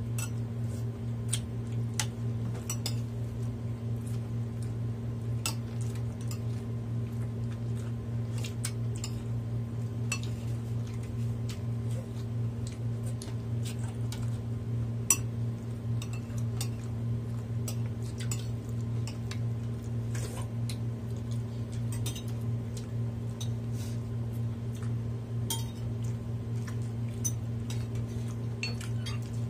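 Cutlery clinking against dishes now and then during a meal, a string of short light clinks spread irregularly through the stretch. Under it runs a steady low hum.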